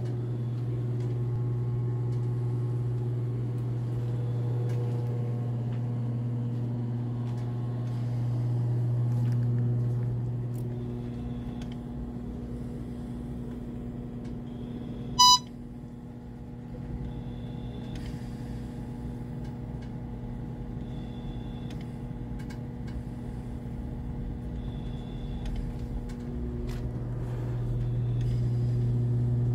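Steady low hum of bedside medical equipment, louder in the first ten seconds and again near the end. About halfway, a single short, loud electronic beep from the ResMed Astral 150 ventilator as its touchscreen is pressed.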